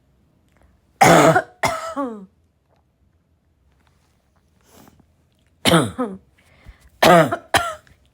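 A young woman coughing hard in bursts: two harsh coughs about a second in, a faint breath, then a run of four more near the end, some trailing off in a falling voiced tail.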